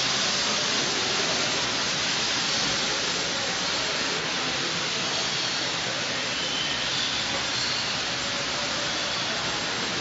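Steady rushing hiss of constant background noise, even throughout, with a few faint short high bird chirps in the second half.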